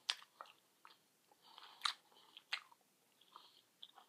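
A person chewing a piece of boxed chocolate candy close to the microphone: faint wet mouth sounds with three sharper clicks, near the start, about two seconds in and a moment after.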